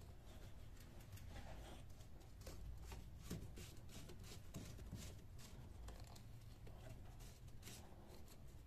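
Faint, scattered clicks and handling noises of a hand working the cap of a car's brake fluid reservoir as it is closed.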